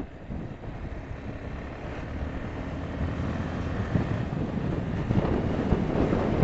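Wind buffeting the microphone: a low rumbling noise that grows louder over the few seconds.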